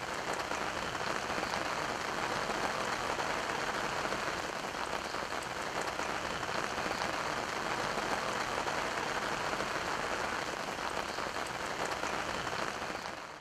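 Steady rain falling on the surface of a lake, an even hiss of countless drops hitting the water.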